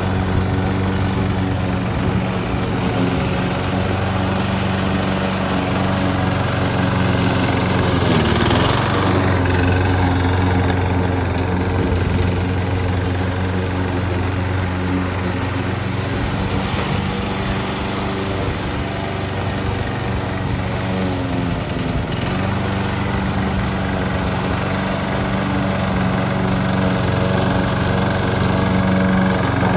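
Gas lawn mower engine running steadily with the blade turning, the push mower converted to remote control with hoverboard wheel motors and driving across grass. Its note dips and recovers briefly about eight seconds in.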